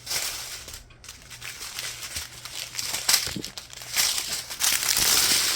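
Small plastic bags of diamond painting drills being handled and sorted: irregular crinkling of thin plastic, loudest near the end.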